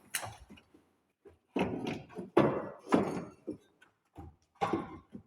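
A string of irregular knocks and thunks, like metal parts and tools being handled during work on a car's suspension strut, loudest in the middle.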